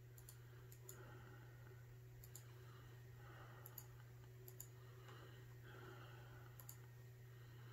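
Near silence with a low steady hum and a few faint, sparse clicks, about six in all: a computer mouse being clicked while moving through printer software menus.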